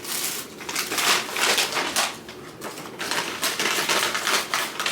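Crinkling and rustling of paper fast-food packaging being handled, in two dense crackly stretches with a short lull about two seconds in.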